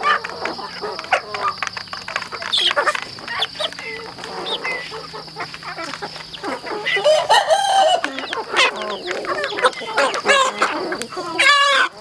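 A flock of young chickens clucking and calling while they feed from a plastic trough, with many short pecking taps. A longer, louder call comes a little past the middle and another just before the end.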